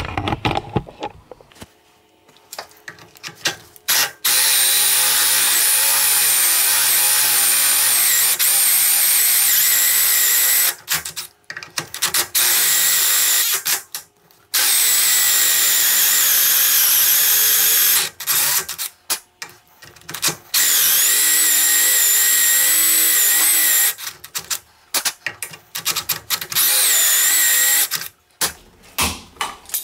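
Power drill boring a hole into a wooden post. It starts about four seconds in and runs in long stretches with brief stops and stuttering restarts, its high motor whine wavering in pitch, and stops near the end.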